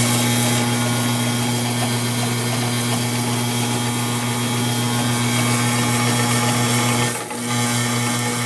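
Modified Pro Cut 2x72 variable-speed belt grinder running at speed: a steady motor hum with the belt's hiss over it, dipping briefly about seven seconds in.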